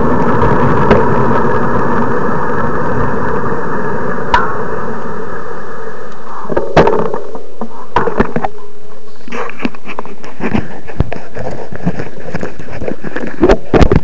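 Wind rushing over a bicycle-mounted camera's microphone while riding, dying away about halfway through as the bike slows to a stop. After that, scattered clicks and knocks.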